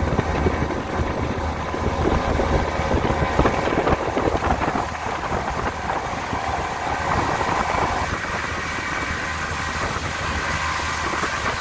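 Boat's outboard motor running steadily at speed, with wind noise on the microphone.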